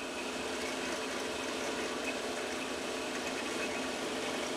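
Bench drill press motor running steadily, with a small bit spinning in the chuck: an even hum with a faint steady whine.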